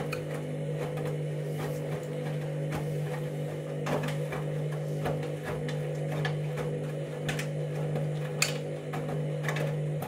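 Candy front-loading washing machine running mid-cycle: a steady motor hum with irregular clicks and knocks over it.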